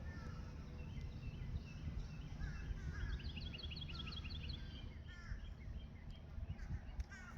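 Birds calling: scattered short high chirps, with a quick run of rapid high notes about three seconds in, over a steady low background rumble.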